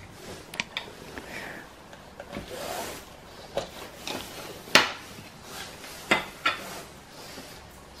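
Purple plastic blade coffee grinder being handled on a countertop while its lid is taken off: scattered short clicks and knocks with soft rubbing between them, the sharpest knock a little under five seconds in.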